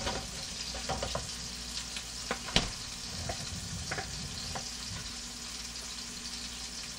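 Grass-fed beef burger patties sizzling in a frying pan in their own rendered fat, with no oil added: a steady frying hiss. A few scattered light knocks and clicks sound over it, the sharpest about two and a half seconds in.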